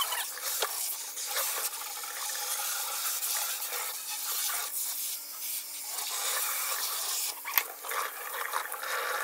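Kitchen sink sprayer running cold water into a stainless steel sink, spraying onto a wet wig as it is rinsed and squeezed. There are a couple of brief knocks, about half a second in and near the end.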